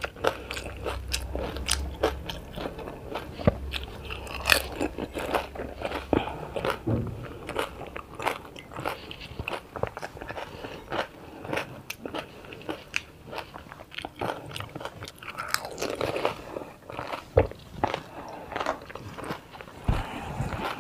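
Panipuri being eaten in big mouthfuls: the crisp fried puri shells crunching and cracking between the teeth, with chewing in between. An irregular run of many crunches, close to the microphone.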